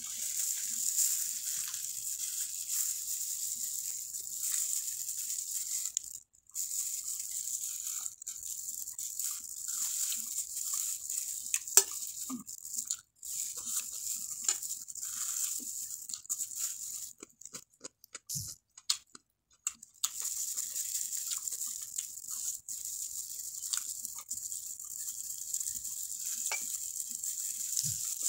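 Eating sounds: chewing mouthfuls of cooked tilapia, with scattered small clicks and crinkles from a spoon and plastic-gloved fingers picking the fish apart on a plate, over a steady high hiss.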